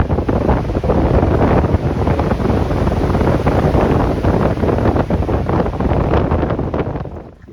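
Strong wind buffeting the microphone: a loud, rumbling, crackling rush that drops away sharply near the end.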